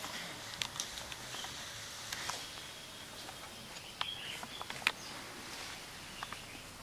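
Birds chirping faintly in the background, with a few sharp clicks and snaps scattered through; the loudest snap comes nearly five seconds in.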